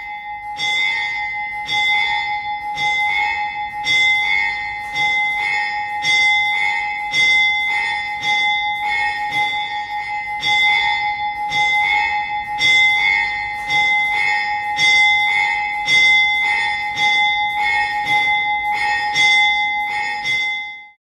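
A bell ringing with quick, even strikes, about two a second, its tone ringing on between strikes; it cuts off suddenly near the end.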